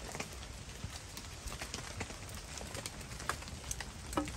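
Wood fire crackling under a hanging cooking pot: sharp, irregular pops and ticks over a low steady rumble.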